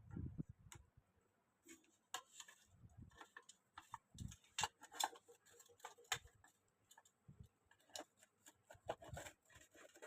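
Irregular light clicks, taps and a few soft thumps of fan parts being handled and worked on by hand; the fan is not running.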